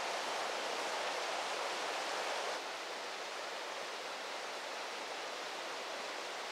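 Steady rushing of a river or stream, even and without breaks, dropping slightly in level about two and a half seconds in.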